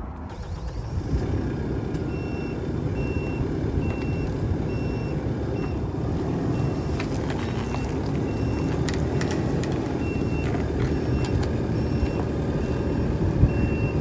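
Mini Merlo telehandler's diesel engine running under load while its reversing alarm sounds a run of short, evenly spaced beeps. It is backing away to pull a stuck PTO shaft apart on a ratchet strap.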